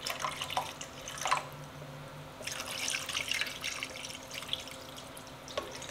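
Water poured from a plastic measuring cup into a pan of tomato sauce, splashing and dripping, heaviest about halfway through and then thinning to a few drips.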